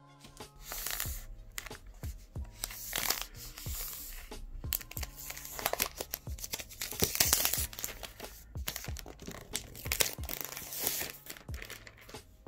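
Clear plastic protective film being peeled off a laptop box, crinkling and tearing in several bursts, over background music with a steady beat.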